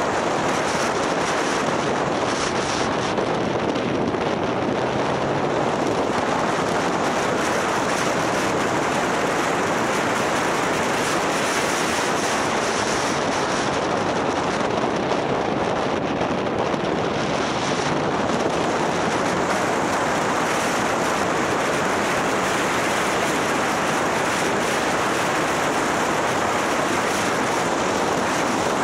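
Steady rush of wind over the microphone of a camera riding on a moving motorcycle, with the bike's running and road noise underneath.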